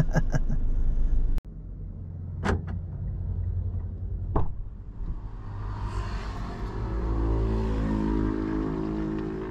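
Low, steady vehicle rumble following a sudden cut, with two short sharp sounds a couple of seconds apart. From about halfway through, music with held notes that step in pitch fades in over it.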